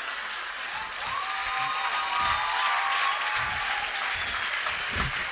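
Live audience applauding a comedian's punchline. A held tone sounds over the clapping for about two seconds.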